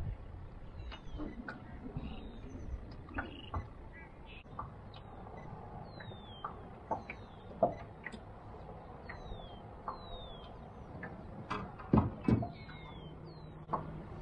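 Birds calling with short, falling whistles every second or so, over scattered light knocks, with two louder thumps about twelve seconds in.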